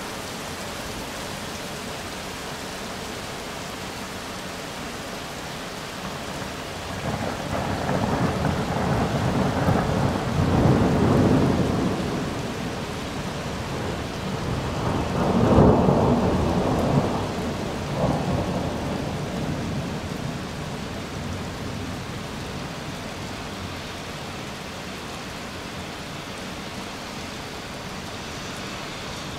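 Steady rain with a long roll of thunder. The thunder swells in about seven seconds in, is loudest around the middle, and rumbles away over the following few seconds.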